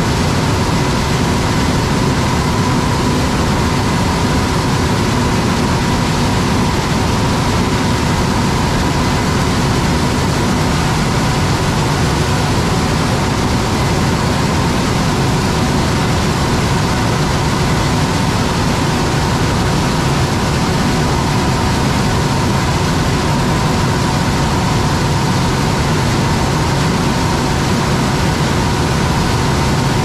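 Combine harvester at work in standing corn: a steady, unbroken running of heavy diesel engine and threshing machinery, with a faint even whine above it.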